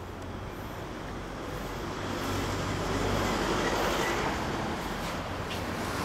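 Motor vehicle noise swelling to a peak about four seconds in and then easing off, over a steady low engine hum.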